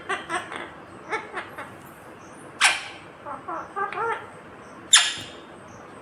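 Rose-ringed parakeet (Indian ringneck) chattering in short talking-like syllables, broken by two loud shrill screeches about two and a half seconds and five seconds in.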